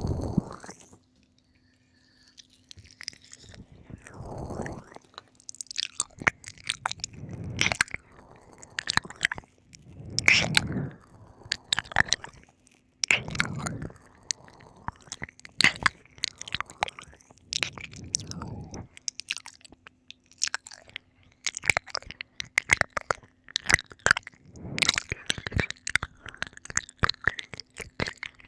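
Close-miked wet mouth sounds of ear-licking ASMR: many sticky tongue and lip clicks and smacks, broken every few seconds by heavy, gasping breaths.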